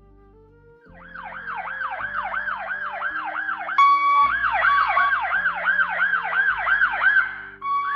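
AI-generated ambulance siren: a fast wail sweeping up and down about twice a second, starting about a second in. About halfway a steady higher tone joins it and it gets louder. Low sustained notes sound underneath.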